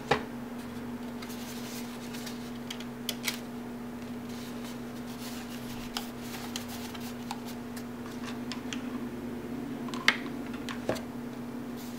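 Stiff card-stock paper petals rustling and crinkling as they are handled and shaped, with scattered light clicks and taps, the sharpest just after the start and about ten seconds in. A steady low hum runs underneath.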